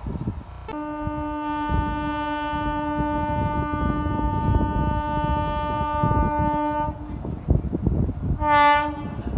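Indian Railways train horn: one long steady blast of about six seconds, then a short blast near the end, over the low rumble of a train.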